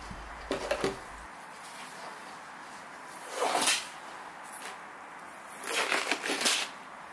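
Handling noises: a rustle as the hard plastic RC car body is set down on a cloth towel, then a cluster of rubbery rustling and snapping about six seconds in as latex gloves are pulled off.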